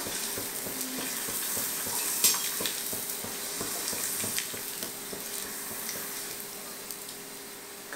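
Potato papad deep-frying in hot oil in a steel kadhai: steady sizzling of the bubbling oil, with a few sharp clicks of metal tongs against the pan, the loudest about two seconds in.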